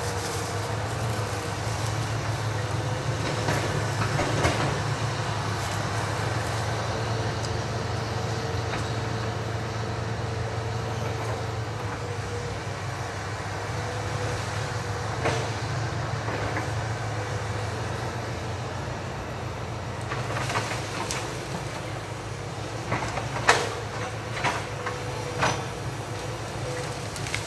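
Hitachi EX200 hydraulic excavator's diesel engine running steadily at a distance, with a faint whining tone that comes and goes. Several sharp knocks sound near the end as the machine works among felled timber.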